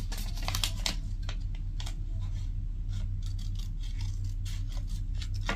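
Scissors snipping through a strip of sheet material to cut it into confetti: a run of short, irregular snips, with a steady low hum underneath.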